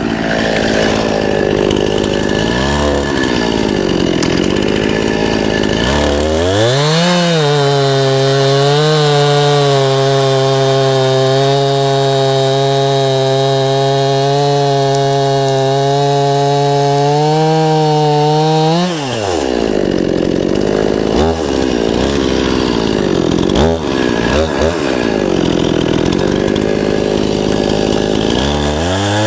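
Two-stroke chainsaw cutting into a pine trunk, its bar buried in the cut. The engine pitch dips and recovers as the chain bites, climbs about six seconds in and holds high and steady for about twelve seconds, then drops and wavers again under load.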